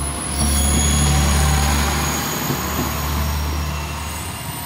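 Amagi Railway diesel railcar running its engine with a steady low drone, which swells about half a second in and then slowly fades.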